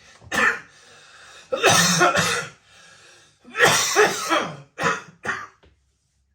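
A man coughing in a fit: about five loud bouts of harsh coughs, with noisy breaths drawn in between them. It is a chronic cough that his doctor puts down to silent reflux.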